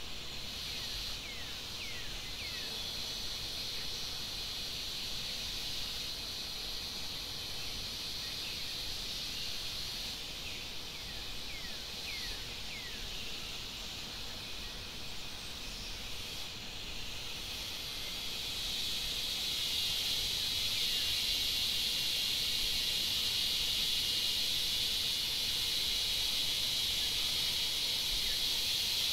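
A steady, high-pitched insect chorus in the forest, which swells louder about two-thirds of the way through. A few short falling chirps sound over it in the first half.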